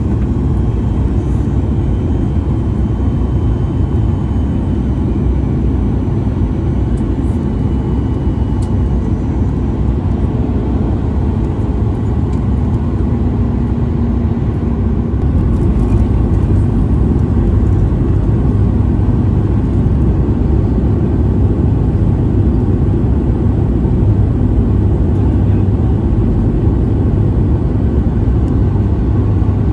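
Steady low rumble of airliner cabin noise in cruise flight, from the Boeing 737 MAX 8's CFM LEAP-1B turbofans and airflow heard inside the cabin, growing slightly louder a little past halfway.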